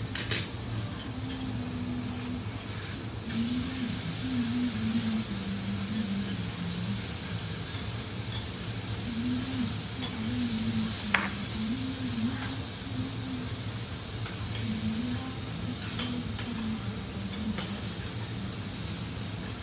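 Steak, beef cubes and seafood sizzling on a hot steel teppanyaki griddle. The sizzle grows louder about three seconds in. A few sharp taps of a metal spatula on the steel come through, the clearest about halfway through.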